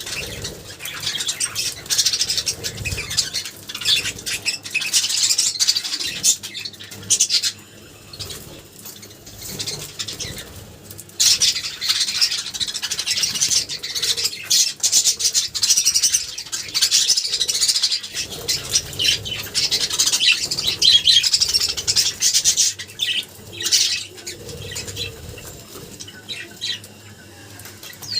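Budgerigar chattering and warbling in fast, high twitters, in long runs broken by quieter pauses about a third of the way in and near the end.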